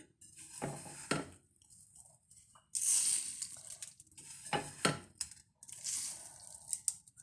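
Roasted whole spices and dry red chilies being spooned into a small spice grinder jar: irregular rustling and light clinks in several short bursts.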